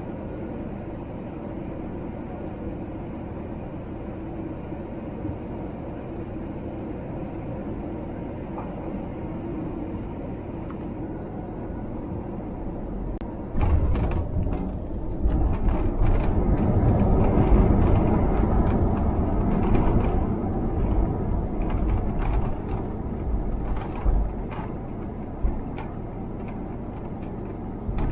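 Airbus A321 cabin noise on landing: steady engine and airflow noise, then about halfway through the main wheels touch down with a sudden thump and rattling. A loud rumble from the wheels on the runway and the engines follows, swelling and then easing off, with knocks and rattles from the cabin.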